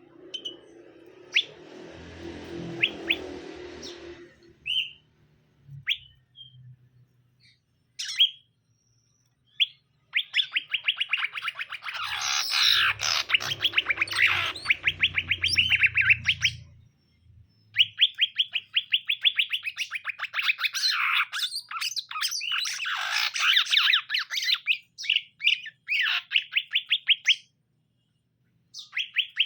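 Cucak ijo (green leafbirds) singing in long, very fast chattering runs of repeated high notes, with short single calls between the runs. A noisy rustle with a low hum is heard in the first few seconds.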